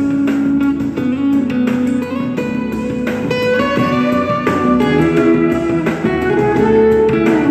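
Guitar-led recorded music played back through a homemade audio amplifier and speaker for a sound test, with plucked notes and a melody that runs on without pause.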